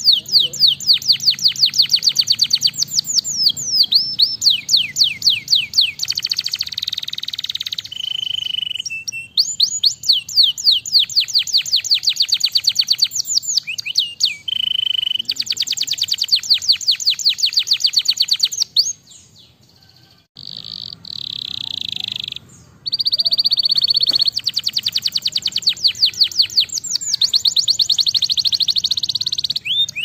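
Canary singing in long, fast rolling trills of rapidly repeated high notes, one phrase after another, with a short pause about two-thirds of the way through.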